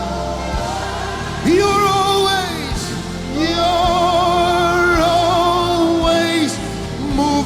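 Live gospel worship music: a steady band accompaniment under a lead line that slides up into two long held notes with vibrato, the second held for about three seconds.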